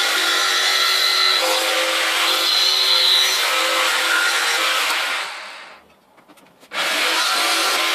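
Makita jigsaw cutting out a hole in a thin metal panel, running steadily. About five seconds in it winds down and stops, then starts up again under a second later and carries on cutting.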